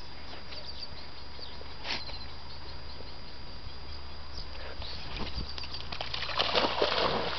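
A few small clicks and rustles over a low steady hum, then about six seconds in a loud burst of splashing as a springer spaniel plunges into the lake to fetch a tennis ball.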